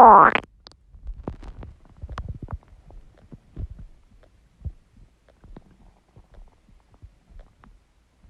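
An empty stomach growling: a run of short, irregular gurgles and pops, busiest in the first few seconds and thinning out and fading toward the end. A loud synthesized sweep cuts off about half a second in.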